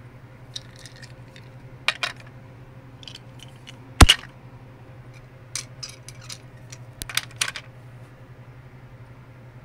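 Small hard objects knocking and clicking together in irregular clusters, with one loudest sharp knock about four seconds in, over a steady low hum.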